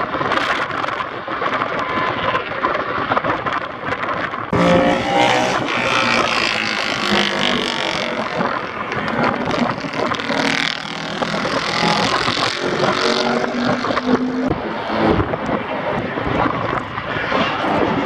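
Vintage racing motorcycles, all built before 1972, running at speed on a race circuit. Several engine notes overlap and rise and fall in pitch as the bikes pass, with a louder bike coming in about four and a half seconds in.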